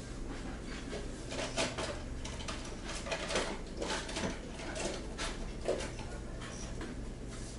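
Rummaging on a shop counter: scattered light clicks, taps and rustles of small objects being moved about and drawers handled during a search for a knife, over a steady low hum.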